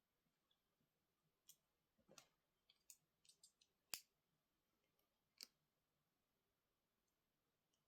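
Faint scattered clicks and taps of small hard parts and tools being handled on a laptop, a quick cluster in the middle with one sharper click about four seconds in, then quiet.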